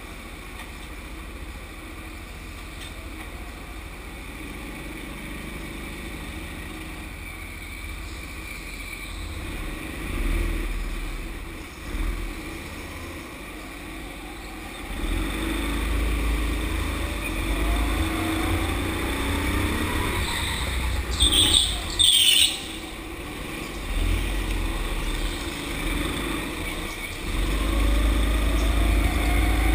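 Rental go-kart heard from its own seat, first waiting in the pit lane, then pulling away and speeding up onto the track, louder from about halfway, with its pitch rising as it accelerates. Two brief sharp loud noises come a little past two-thirds through.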